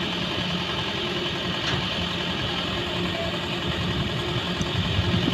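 Diesel engine of heavy machinery idling steadily.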